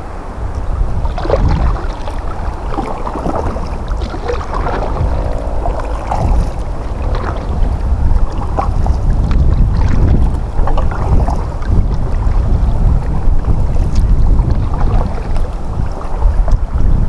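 Wind buffeting the microphone in a loud, uneven rumble, with irregular splashing of river water.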